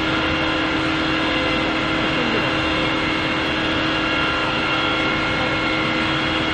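A steady, loud mechanical drone with a constant hum, as of a running engine; it holds even throughout with no breaks.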